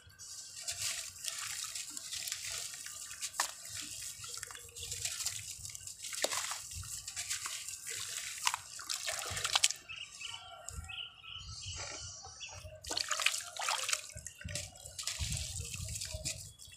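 Sand-cement lumps being crumbled by hand over a tub of cement water: irregular gritty crunching and crackling, with splashes and drips as the wet pieces fall into the water.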